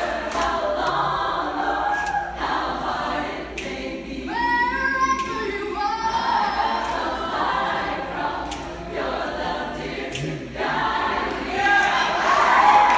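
Women's a cappella choir singing, several voices together without instruments, growing louder near the end.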